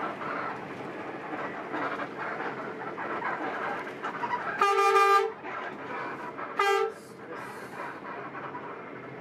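Interior running noise of a coach bus on a winding road, with the bus's horn sounded twice: a long blast about halfway through and a short toot about two seconds later.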